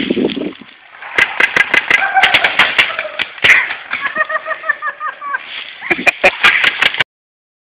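Paintball markers firing in rapid, uneven strings of sharp shots. The sound cuts off suddenly near the end.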